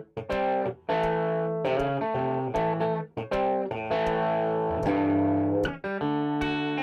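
Plucked-string instrumental music: guitar-like chords played in phrases, with brief stops between them.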